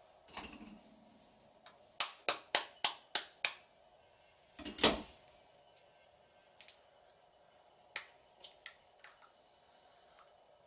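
A raw egg is tapped six times against a hard edge, about four sharp taps a second, then its shell gives with a louder crunch. Near the end come a few light clicks as the cracked shell is pulled apart.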